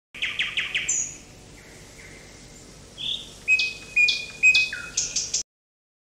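Northern cardinal singing: a quick run of about five short notes, then four clear whistles that each slide down steeply and hold a steady pitch. The song cuts off abruptly near the end.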